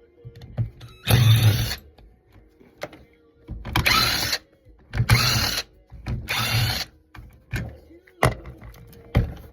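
Power drill or driver run in four short bursts, as screws are backed out of a fan being dismantled for scrap. A few clicks and knocks of parts being handled follow near the end.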